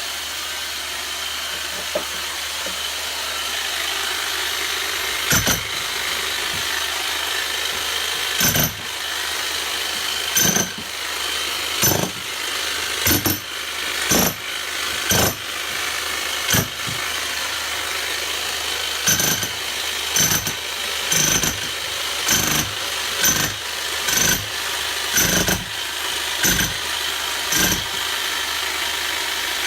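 Bosch electric demolition hammer running continuously as it chisels into brick and mortar, with loud sharp knocks from about five seconds in that come irregularly at first and then about once a second.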